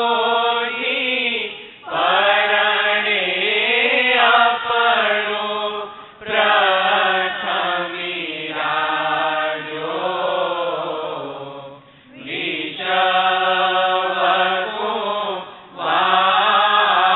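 Devotional chanting: a voice chanting melodic phrases of about four seconds each, with short breaks for breath between them.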